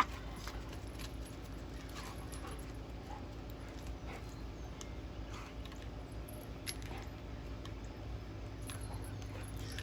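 A dog whimpering softly: a few brief, faint whines spaced a second or two apart over a steady low hum.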